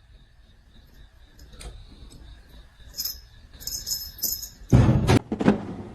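Light metallic jingling, then a couple of loud thumps near the end.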